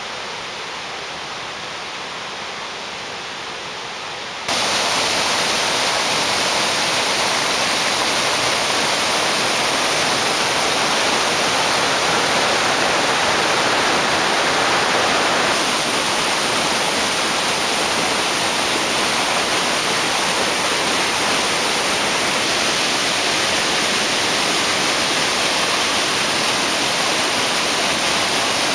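Whitewater rapids rushing steadily over rocks. The sound is softer for the first few seconds, then jumps louder about four and a half seconds in and stays steady.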